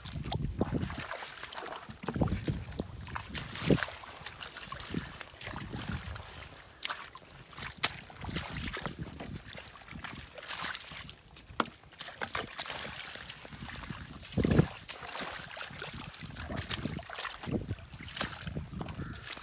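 Bare feet and hands squelching and splashing in shallow muddy water, with irregular small knocks and a couple of louder dull thumps, about four seconds in and about three-quarters of the way through.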